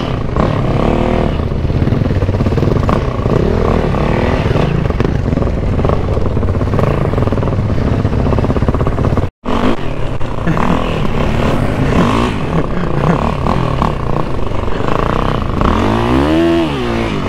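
Off-road vehicle engine being ridden hard, revving up and down so that its pitch rises and falls again and again. The sound cuts out completely for a moment a little past halfway.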